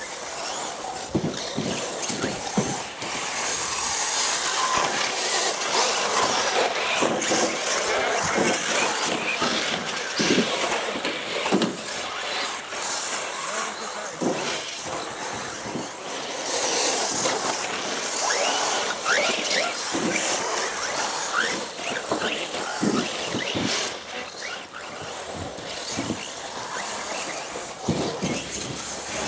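Radio-controlled model race cars running on the track, their small motors whining and rising and falling in pitch as they accelerate and brake, with scattered knocks.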